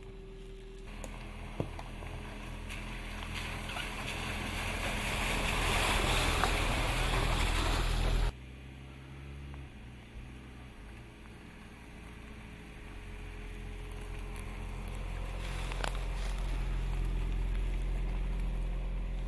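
Jeep Compass Trailhawk SUV driving off-road over a dirt and leaf-strewn track: tyre noise crunching over the ground with the engine's low hum, swelling as it comes near and stopping suddenly about eight seconds in. A steadier engine hum follows and builds again toward the end.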